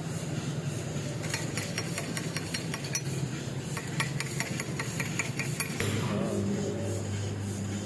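Quick, irregular light metallic taps and clinks, steel being struck or handled, over a steady low hum. About six seconds in the clinks stop and a stronger steady electrical hum starts.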